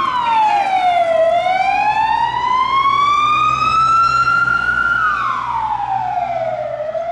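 Emergency vehicle siren wailing in a slow cycle: the tone falls in about a second, climbs back over about four seconds, then falls again near the end.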